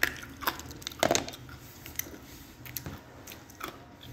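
A person biting into something hard and brittle and chewing it, close to the mouth. Sharp crunches come at the start, about half a second in and loudest about a second in, followed by smaller, scattered crunches while chewing.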